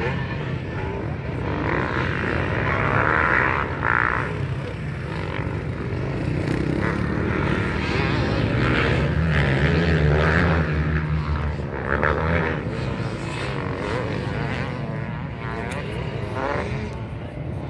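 Dirt bike engines racing around a motocross track, heard at a distance, with a steady drone and revs that rise and fall as riders accelerate and back off through the corners and jumps.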